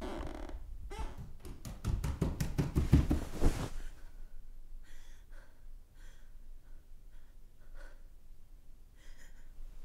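A rapid run of knocks and thuds that comes faster and faster, then stops; after that, soft, uneven breaths and sighs.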